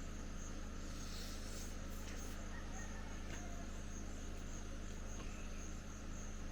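Insects, crickets by their sound, chirping in a high, evenly pulsing trill over a low steady hum, with a few faint clicks.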